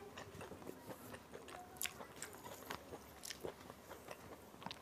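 Close-up eating sounds: fingers squishing and mixing rice and dal on a steel plate, and chewing, with many short wet clicks and smacks.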